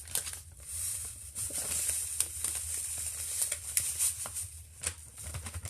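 Kitchen handling noises: scattered light knocks and rustling from mixing or pouring, over a steady low hum.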